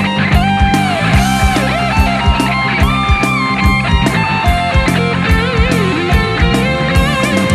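Rock music instrumental break: a lead electric guitar plays a melody with pitch bends and vibrato over bass and a steady drum beat.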